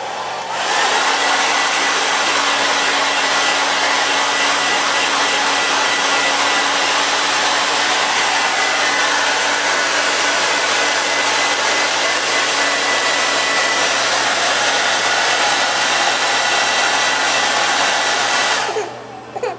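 Handheld hair dryer switched on about half a second in, blowing steadily with a faint high whine, then switched off near the end.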